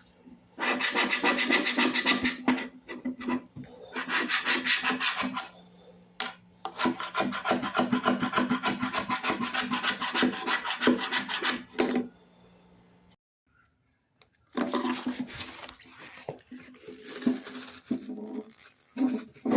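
Sandpaper worked by hand on wood, fast back-and-forth strokes in three runs, then after a pause rougher, less even rubbing.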